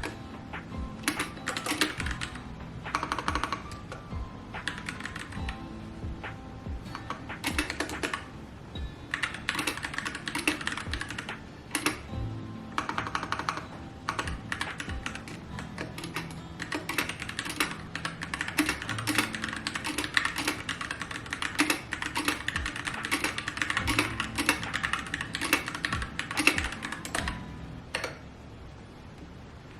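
Typing on a keyboard: quick runs of keystrokes broken by short pauses, over background music.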